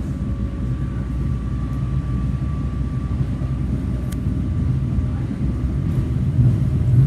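Passenger train running, a steady low rumble with a faint high whine held throughout, as heard from on board.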